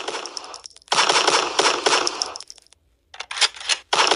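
Automatic gunfire in long rapid bursts, breaking off for a moment near three seconds in before firing again.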